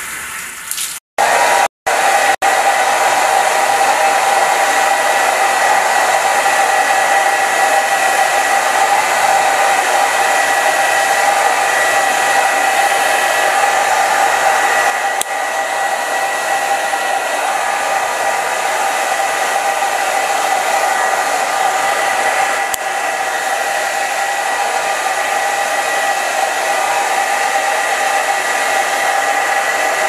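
A shower head spraying water onto wet hair for about the first second. After two brief cut-outs, a hand-held hair dryer blows steadily on long wet hair, a loud rushing airflow with a faint steady motor whine. It drops a little in level about halfway through.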